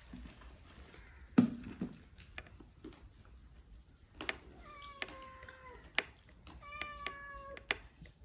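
A domestic cat meowing: two drawn-out meows of about a second each, about four and seven seconds in. A sharp knock comes about a second and a half in, with a few lighter clicks.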